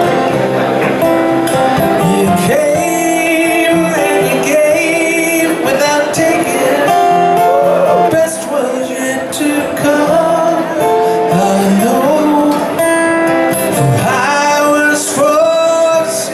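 A man singing a slow alt-country song while strumming an acoustic guitar, played live solo.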